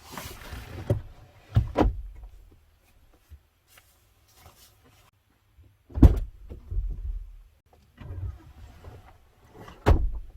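A short rustle, then three heavy thumps a few seconds apart, with lighter knocks and handling noises between them.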